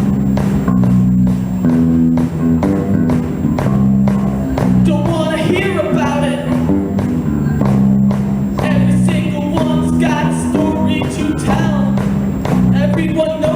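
A live rock band playing a song: guitar and bass chords over a steady drum beat, with a lead vocal singing from about five seconds in.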